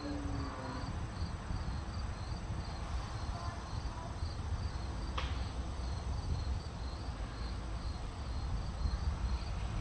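An insect chirping in a steady, even rhythm, about two high chirps a second, over a low rumble, with one sharp click about five seconds in.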